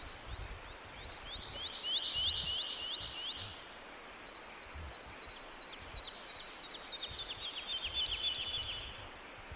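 A bird singing outdoors, two trills of quick, repeated falling notes, each lasting a couple of seconds, with low wind rumble underneath.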